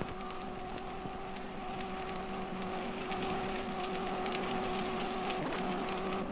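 Gas welding torch burning on a kart's steel tube frame, a steady hiss with a steady hum running under it.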